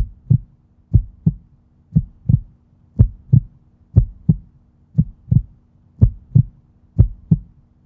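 Heartbeat sound effect: pairs of short, low thumps, one pair about every second, with a faint steady hum underneath.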